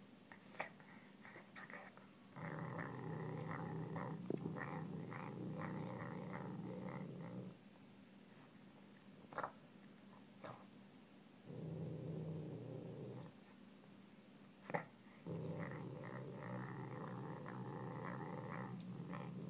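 Savannah cat growling over a piece of raw pork. Three long, low growls: the first lasts about five seconds, a shorter one follows, and a third starts near the end. A few sharp clicks come in the pauses.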